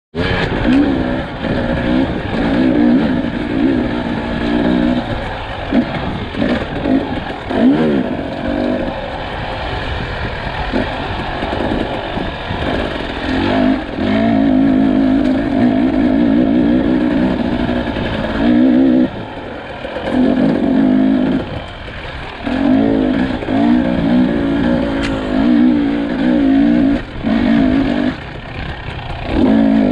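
2022 Husqvarna TE300i's single-cylinder two-stroke engine being ridden, its note rising and falling as the throttle is opened and closed, with several brief drops off the throttle in the last third.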